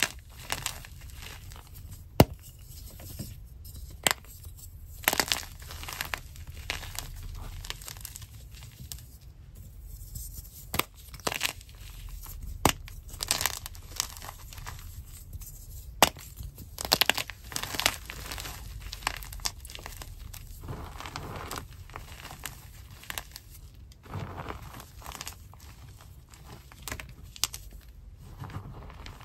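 Hands squeezing and crushing crumbled chalk chunks in a glass bowl: continual soft crunching and crumbling, broken by sharp cracks at irregular intervals as pieces snap.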